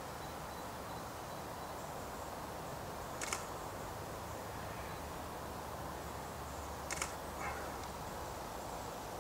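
DSLR camera shutter firing twice, two short clicks about three and a half seconds apart, over a steady background hiss.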